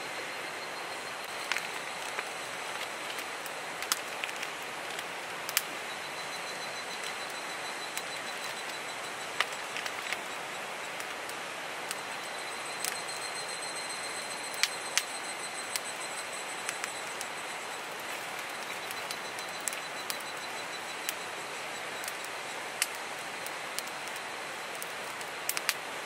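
Steady rush of river water with the sharp pops and crackles of a wood campfire scattered through it, and a thin high trill that comes and goes.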